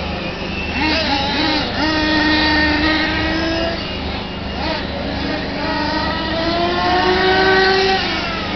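Several on-road radio-control racing cars running at speed around the track, their high-pitched motor whine rising and falling in pitch as they accelerate and slow, more than one car heard at once.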